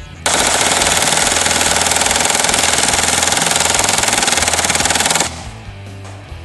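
A full-auto Glock pistol in a Roni carbine conversion fires one unbroken burst of about five seconds, emptying a 100-round Beta drum magazine. The burst starts a moment in and cuts off abruptly, with background guitar music underneath.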